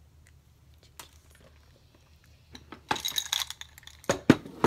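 Small makeup bottles and containers clinking and clattering together as they are packed away. There is a single click about a second in, a rattling run of clinks about three seconds in, and a couple of sharper knocks near the end.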